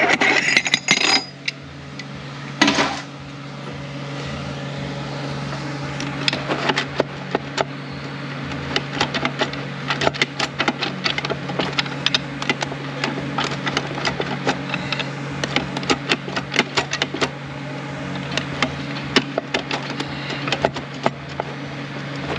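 Small metal clicks and clinks from the Ford 10R80 transmission's shaft, drum and clutch plates as they are rocked and twisted by hand to seat into the clutch pack, coming quickly and irregularly from about six seconds in, with one louder knock near the start. A steady low hum lies underneath.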